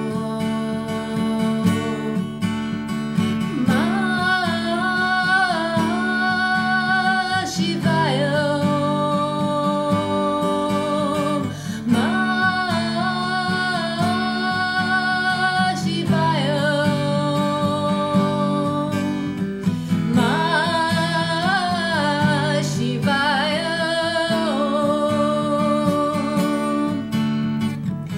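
Song with acoustic guitar and a sung melody, the voice coming in about three and a half seconds in and singing in long phrases with short breaks between them.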